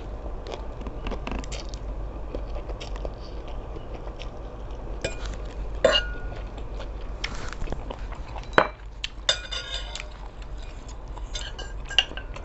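Eating utensils clinking and scraping against a bowl during a meal, as scattered sharp clicks and short ringing clinks, the sharpest about eight and a half seconds in. A low steady hum runs underneath.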